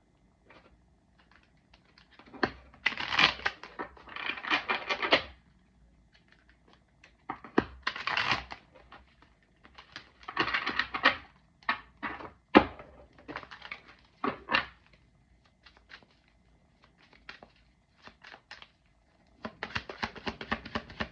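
A deck of tarot cards being shuffled by hand: several bursts of rapid flicking and riffling separated by pauses, a few sharp taps, and a denser run of quick flicking near the end.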